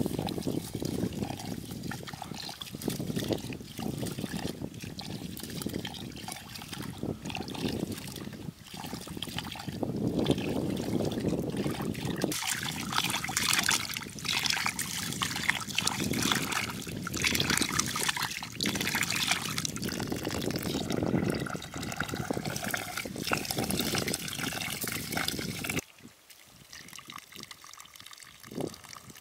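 Water running from a hose pipe into an aluminium pot while rice is swished and rubbed by hand in it: rice being washed. About 26 seconds in the sound drops away, and near the end the milky rinse water is poured out onto the ground.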